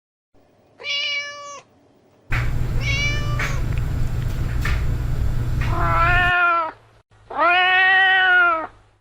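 Domestic cat meowing in several separate clips edited together. A short high meow comes about a second in, then two more higher calls over a low rumble and hiss that cuts off suddenly. Near the end comes one longer, lower meow held for about a second and a half.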